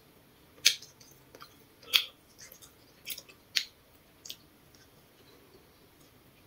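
Close-up eating sounds: a person biting and chewing a grilled potato cake, with a handful of sharp, irregular crunches and crackles in the first four and a half seconds.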